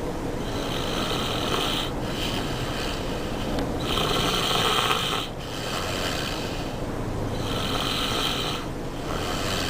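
A person snoring in their sleep: about five snoring breaths in a row with short pauses between them, the one about four seconds in the loudest.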